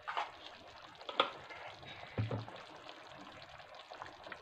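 Palak paneer simmering in a kadai with a soft bubbling, broken by a few short clinks and knocks of a steel spoon as garam masala is spooned in.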